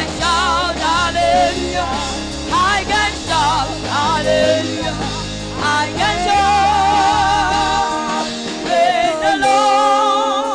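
Live gospel praise music: a singer's wavering, gliding vocal runs through a microphone over a band with bass. The bass drops out about eight seconds in, leaving the voice and held notes.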